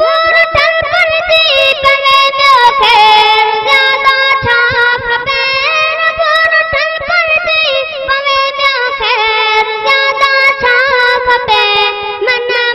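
A boy's high solo voice singing a Sindhi devotional hamd in long, ornamented held notes that bend and waver from pitch to pitch.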